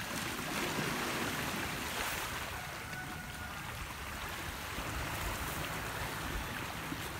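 Sea surf washing on a pebble shore, a steady rushing noise, with wind buffeting the microphone.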